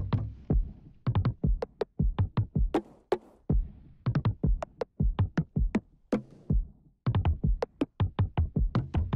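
Electronic music with a fast drum-machine beat and synthesizer, pausing briefly a couple of times.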